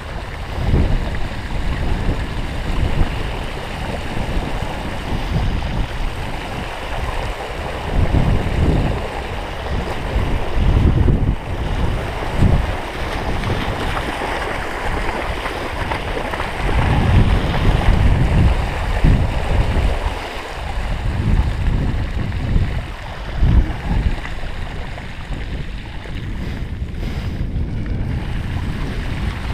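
Water splashing and sloshing as a Belgian Tervuren shepherd dog and the camera carrier move through shallow floodwater, with uneven wind rumble on the microphone.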